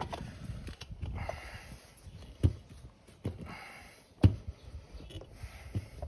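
A scooter wheel with a freshly mounted tire being turned and shifted by hand on a rubber floor mat: rubber rubbing and shuffling, with dull thumps about two and a half and four seconds in, the second the loudest.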